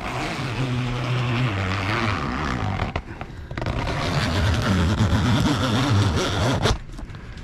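An engine running steadily, its pitch shifting, with a short dip about three seconds in.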